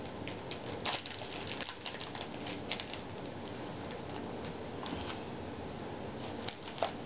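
Trading cards being handled and flipped through by hand: scattered light clicks and flicks of card stock, with a few sharper ones about a second in and near the end.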